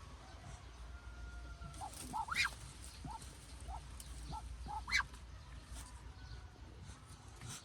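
Farm poultry calling: a run of short calls, with two sharper, louder squawks about two and a half and five seconds in.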